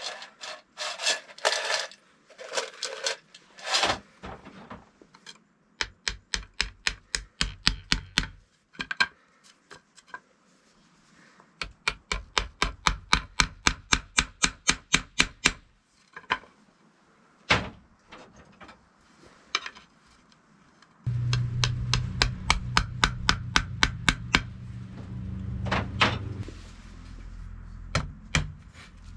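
Hand woodworking on wood and bamboo: a few rasping strokes, then runs of regular hammer blows at about four a second. Later a power tool runs with a steady low hum for about five seconds, with knocks over it.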